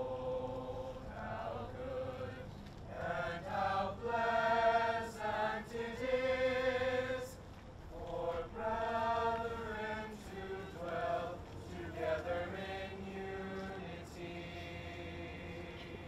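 High school choir of mixed voices singing together in held notes, phrase after phrase with short breaths between.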